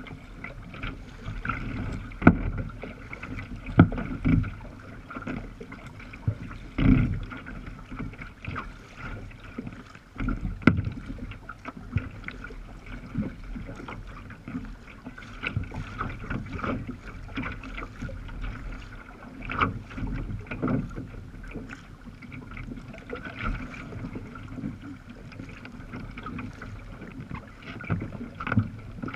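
Small waves slapping and splashing against the bow of a moving sea kayak, heard from a camera on its deck: a constant wash of water with irregular louder slaps.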